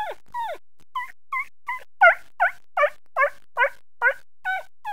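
A person imitating a puppy's yelping whimper with the voice: a quick, even run of short high yelps, each falling in pitch, about two or three a second, growing louder about two seconds in.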